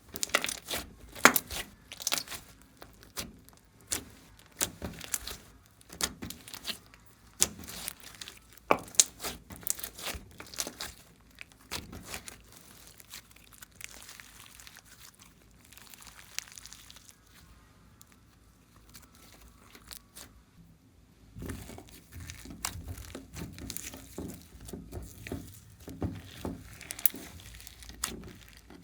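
Glossy slime being squeezed, pressed and stretched by hand, giving sharp clicks and pops. About 21 s in, this turns into a denser, lower, continuous squishing as the slime is kneaded and mixed.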